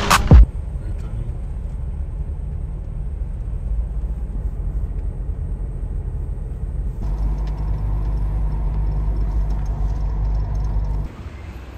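Car engine and road noise heard from inside the cabin while driving: a steady low rumble. It gets slightly louder about seven seconds in and drops quieter near the end.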